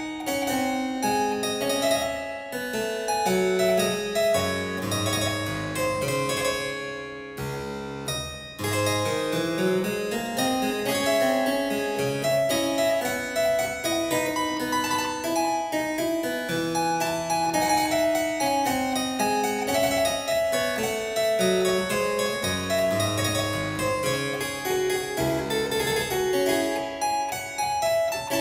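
Solo harpsichord playing a calm piece, a bass line under a running melody, with a brief break in the phrase about eight seconds in.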